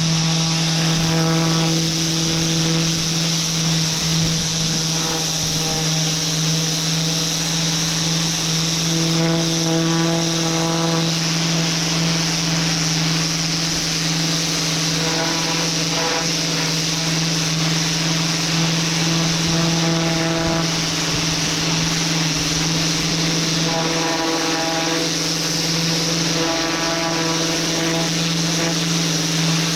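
Pressure washer running steadily, a constant motor hum under the hiss of the water jet spraying onto concrete.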